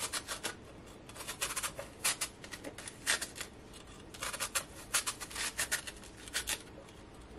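Chef's knife shredding a wedge of raw cabbage held in the hand: crisp slicing strokes through the tight leaves, coming in quick runs of several cuts with short pauses between.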